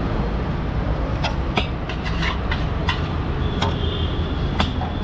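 Steady low rumble of street traffic, with scattered sharp clinks of a metal ladle against a large steel pan as poha is scooped and served.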